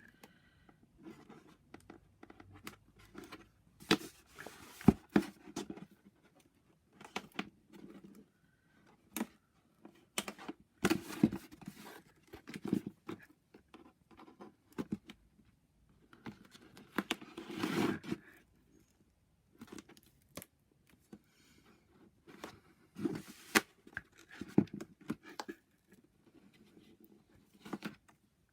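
Paper-crafting handling sounds: card being moved and pressed, with short tearing rasps of red liner double-sided tape being torn and its backing peeled. Irregular taps and scratchy rasps, the longest about two-thirds of the way through.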